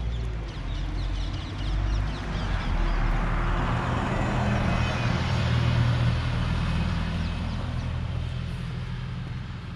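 A motor vehicle driving past, its engine hum and tyre noise swelling to a peak about five or six seconds in and then fading. Birds chirp over it in the first few seconds.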